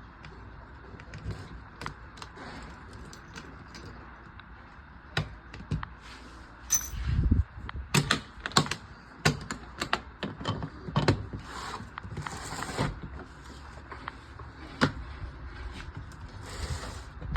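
A 186-piece tool set being handled: irregular clicks, knocks and light metallic rattles of tools and their case, with a low thud about seven seconds in and a few short rustling scrapes.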